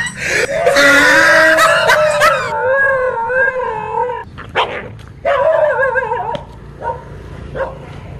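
Dog howling and yelping: long wavering cries in the first half, then short yelps that grow quieter toward the end.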